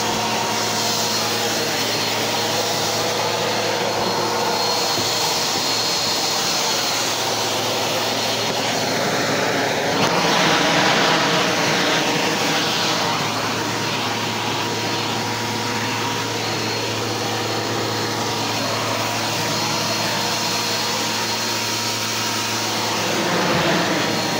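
Upright vacuum cleaner running steadily with a constant motor hum, a little louder for a few seconds about ten seconds in.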